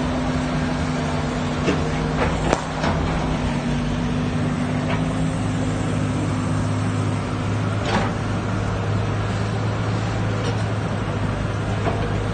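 Hydraulic excavator's diesel engine running steadily under working load as it loads soil into a dump truck, with a few sharp knocks from the bucket and dumped earth.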